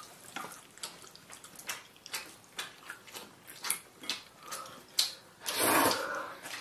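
Eating at a table: chopsticks and spoons clicking against bowls several times a second. About five and a half seconds in, a louder hiss lasts about a second.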